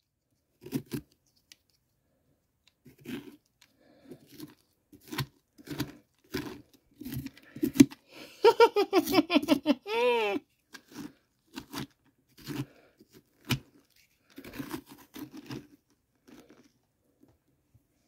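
A pumpkin being carved and scraped out, in short, irregular crunching and tearing strokes, mixed with heavy breathing. A drawn-out groan rises and falls in pitch about halfway through.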